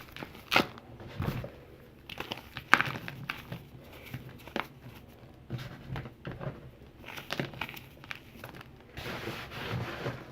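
Calcium carbonate being crumbled and crushed: irregular crunching and crackling, with a longer gritty rubbing near the end as it turns to powder.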